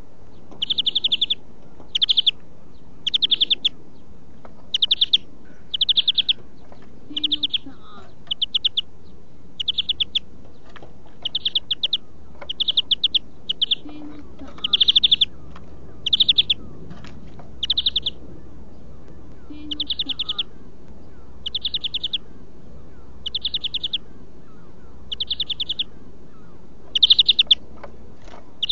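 European greenfinch singing: a series of short, rapid trills, each about half a second long, repeated roughly once a second.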